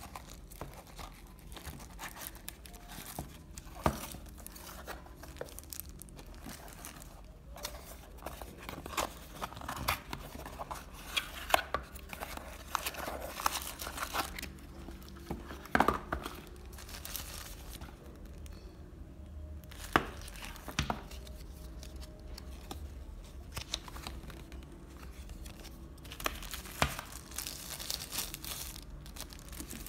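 Small paperboard box being handled and unpacked: card flaps and inserts rustling and scraping, with sharp clicks and snaps scattered throughout. Thin plastic wrapping crinkles as a packed part is handled near the end. A low steady hum lies underneath.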